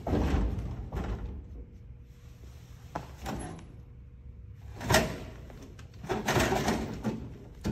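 Snack vending machine being used: a loud clunk and rattle at the start, then the hinged flap of the delivery bin knocking and rattling as a hand pushes it open and takes items out, with a sharp knock about five seconds in and a run of rattles after it.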